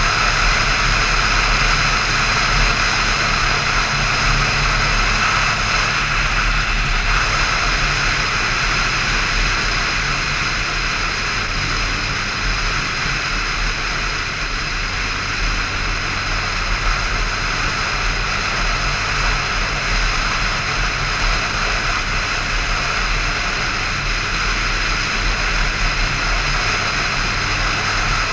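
Motorcycle engine running at a steady cruising speed, under a heavy rush of wind and road noise on the microphone.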